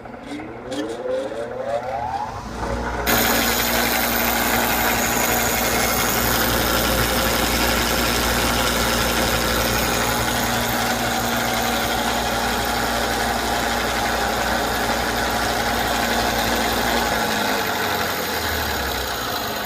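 Drill-press-and-grinder-wheel sharpening rig for Greenteeth stump grinder teeth starting up: a whine rises over the first two seconds, then about three seconds in a loud, steady grinding noise begins as a paint bucket holding about two pounds of teeth is worked against the wheel. Near the end a low hum stops and the grinding eases off.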